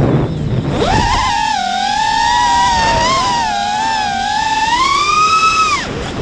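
FPV racing quadcopter's brushless motors (Emax 2306 2750KV) with Dalprops Cyclone props, whining under throttle over wind rush on the onboard microphone. The whine jumps up in pitch about a second in, rises and falls with the throttle, climbs near the end, then drops away sharply as the throttle is cut.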